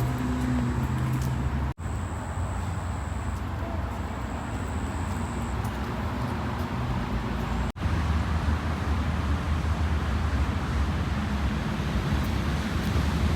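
Steady rumble of distant city traffic. It breaks off for an instant twice.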